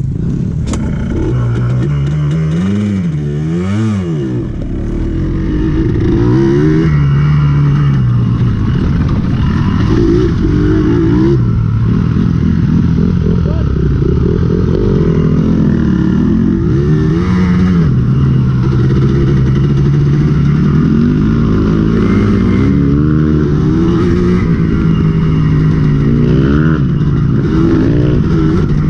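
Dirt bike engine running and revving, its pitch rising and falling several times in the first few seconds, then holding a fairly steady note with smaller rises and dips as it is ridden.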